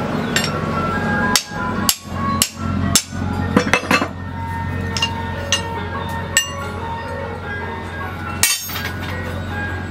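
Sharp metallic clinks and knocks as a coiled steel ring is worked and knocked against a steel post. About a dozen strikes come, most of them bunched together between one and four seconds in, then a few more spaced out. Background music plays under them.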